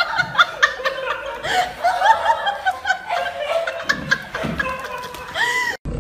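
Someone laughing in short, high-pitched bursts, several a second, in quick runs.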